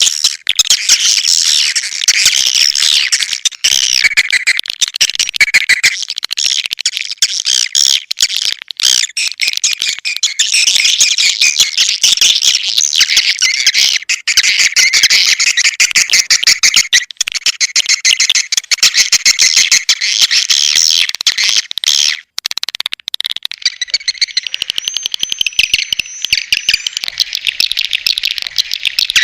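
Swiftlet lure-call recording: dense, continuous high twittering of many swiftlets mixed with rapid clicks, the sound played at swiftlet nest houses to attract the birds. It breaks off briefly about three-quarters through, and a thin steady high whistle tone runs under the chirps near the end.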